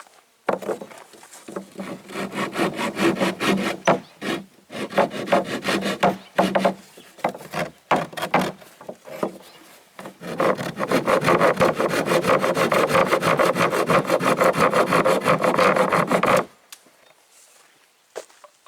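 Wood being sawn: rough, quick strokes, stop-start at first and then continuous for about six seconds before stopping abruptly.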